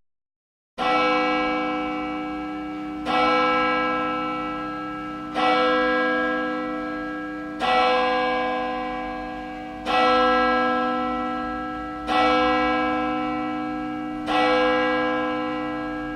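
Church bell tolling: seven strikes about two seconds apart, each ringing on and slowly fading before the next.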